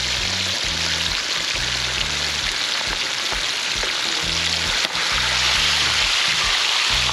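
Hot oil sizzling steadily as two whole red snappers deep-fry in a wok, over background music with a low, rhythmic bass line. The sizzle grows a little louder about five seconds in.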